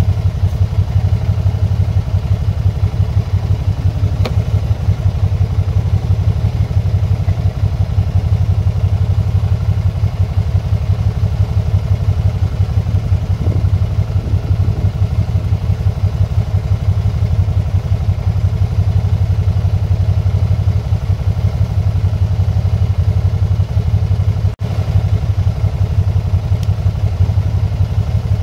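Can-Am motorcycle's engine idling steadily: a low, fast, even throb. It cuts out for an instant about three-quarters of the way through.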